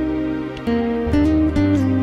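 Soft instrumental background music with plucked guitar notes, the chords changing every half second or so.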